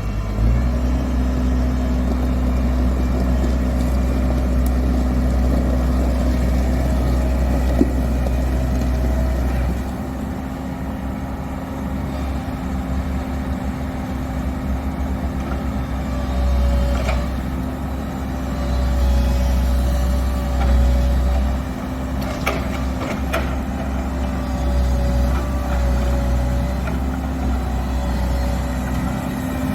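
Komatsu PW110 wheeled excavator's diesel engine running steadily. Its sound swells and eases several times, and a few sharp clicks or knocks come in the second half.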